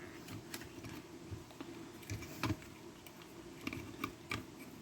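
Scattered light clicks and taps, about half a dozen spread irregularly, from the stud finder's small circuit board being handled and flipped over.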